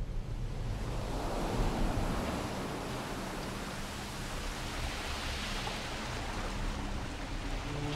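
Steady rush of road and wind noise from a moving car, heard from inside the cabin, with a faint low engine hum beneath.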